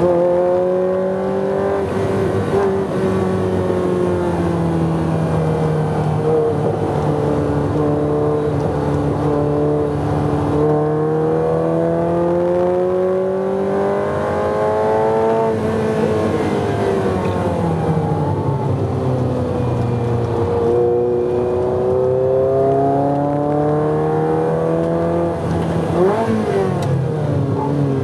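Ferrari 348's 3.4-litre V8 heard from inside the cabin while lapping a circuit, its note rising and falling slowly with the throttle. The pitch sags as the car slows about two-thirds of the way through, then climbs again, and there is a quick rev blip about two seconds before the end.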